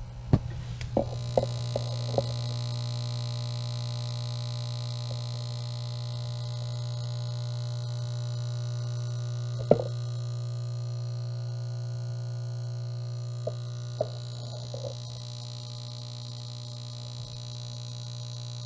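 Replacement vintage Vox AC30 power transformer (from a circa-1970 AC30) in a 1964 Vox AC30 valve amp giving off a steady low humming, buzzing noise, more than expected, though no vibration can be felt and the amp performs fine; the cause is unknown. A few knocks come from the microphone being moved about near it.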